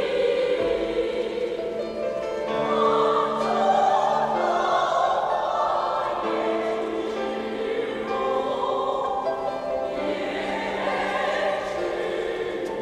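Choir singing in several parts, the voices holding long notes that move together from chord to chord.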